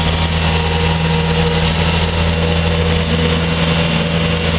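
Bobcat skid-steer loader's diesel engine running at a steady, even pitch.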